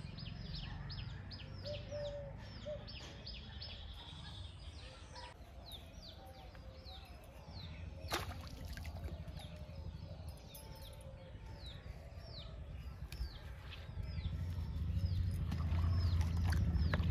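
A small bird calling over and over with short descending chirps, about three a second. There is one sharp click about eight seconds in, and a low rumble grows louder near the end.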